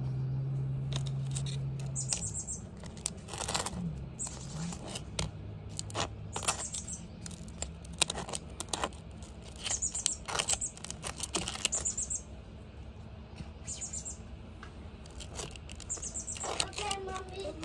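A table knife scraping and spreading cream cheese over a well-toasted bagel, in irregular crisp scrapes and clicks as the blade drags over the crust and taps the plate.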